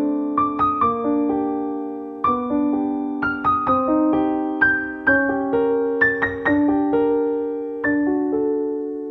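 Piano music: notes and chords struck one after another, each ringing and dying away before the next.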